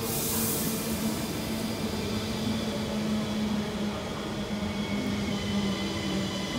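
Two coupled Siemens Desiro ML (NMBS MS08) electric multiple units pulling into the station, their electric drive whining in several steady tones over the rumble of the wheels on the rails. A short hiss comes in the first second, and a higher tone sets in about five seconds in.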